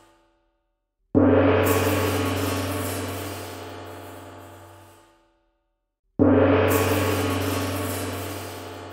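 Large struck metal percussion instrument, hit twice about five seconds apart; each stroke starts suddenly, rings with a deep hum and a bright shimmer, and slowly fades away.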